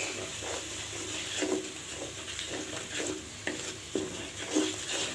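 Wooden spatula scraping and stirring a thick onion-and-spice masala in a karahi, about two strokes a second, over a soft sizzle of hot oil. The masala is being fried down (kosha) with salt just added.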